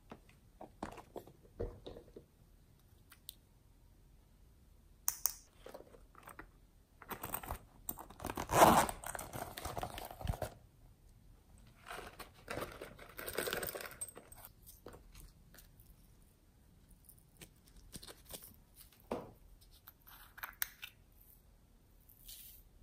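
Hands adding decorations such as glitter and small beads to glass trays of slime: scattered clicks and crinkly rustling, with a loud rustling burst about nine seconds in and a longer rattling stretch a little after twelve seconds as beads are poured from a container.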